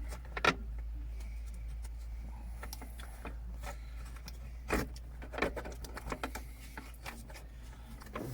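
Light handling noises: scattered clicks, knocks and rustles as a rubber gearshift boot is worked into place by hand, over a low steady hum.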